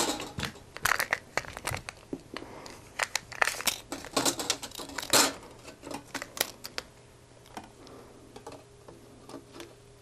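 Thin 0.3 mm stainless steel sheet strips handled on a tabletop: a quick run of sharp clicks, rattles and crinkles as the flexible sheet metal is moved and flexed, thinning out after about seven seconds to a few small ticks.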